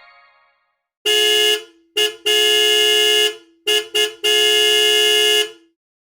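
Horn honks sounded as a fictional emergency alert: six blasts of one steady pitch in a pattern of short, short, long, short, short, long, the last ending with a slight drop in pitch.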